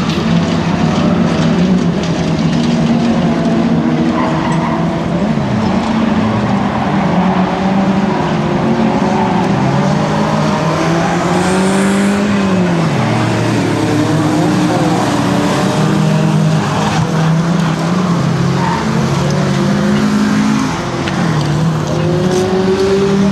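Several old saloon race cars running hard together, their engines revving up and down through the gears as the pack races past, with tyres skidding.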